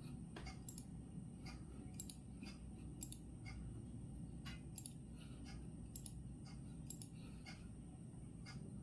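Clock ticking about once a second, with fainter clicks between the ticks, over a steady low background rumble and hiss.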